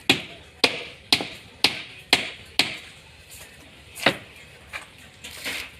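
Hand tool striking wood with sharp, separate blows: six about two a second, then a pause, then three more.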